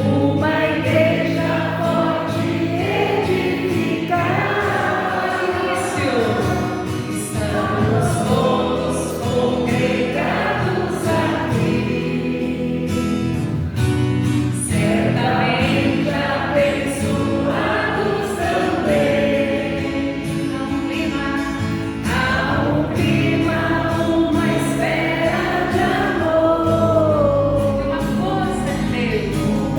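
Worship singing in a Portuguese-language church service: several voices sing a praise song together over steady instrumental accompaniment, without a break.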